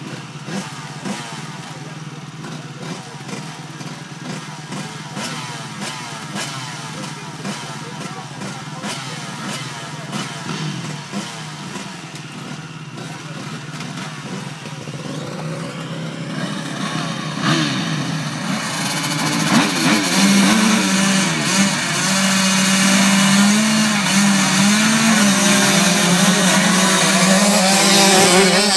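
Several motocross dirt bikes idling together at a start line, then revving up hard and pulling away about 17 seconds in. The engines are held at high revs, with the pitch wavering.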